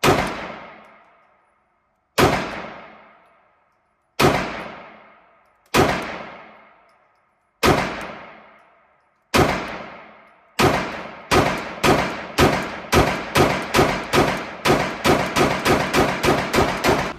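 Compensated 9mm pistol firing 124-grain rounds on an indoor range: six single shots about two seconds apart, then a fast string of about twenty shots at roughly three a second. Each report rings and echoes off the range walls.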